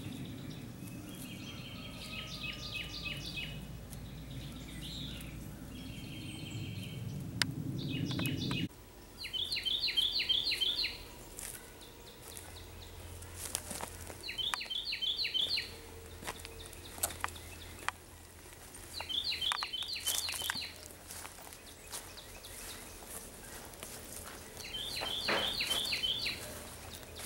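Wild songbirds singing, one bird repeating the same short, rapid chirping phrase every five seconds or so. A low steady rumble under the first third cuts off abruptly about nine seconds in.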